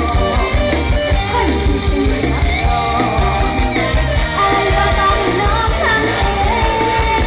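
Loud amplified mor lam music from a live troupe on stage: a sung melody over a pulsing bass beat.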